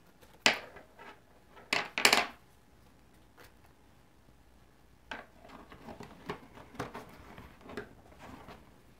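A wooden embroidery hoop holding Aida cloth being handled on a wooden tabletop: a few sharp knocks and taps in the first two seconds, then softer tapping and fabric rustling from about five seconds in as the cloth is adjusted in the hoop.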